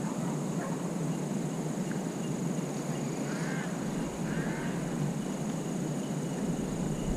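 Faint distant animal calls, two short rising-and-falling cries about three and four and a half seconds in, over steady outdoor background hiss.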